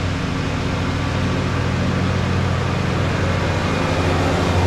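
Lawn mower engine running steadily: a low, even drone that grows a little louder near the end.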